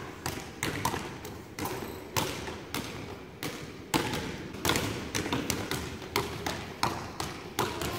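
Several basketballs dribbled on a hardwood gym floor: overlapping bounces at an uneven pace, a few each second.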